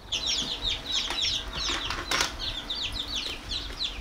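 Newly hatched chicks peeping: rapid high chirps, each sliding down in pitch, several a second.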